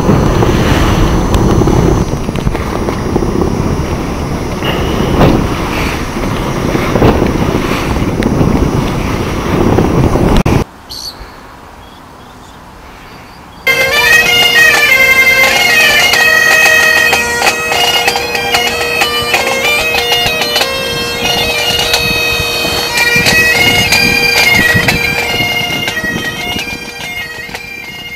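Rushing wind and water noise aboard a sailboat under way, in irregular surges, for about ten seconds. After a brief quieter lull, music begins: a steady drone note under a melody, fading out near the end.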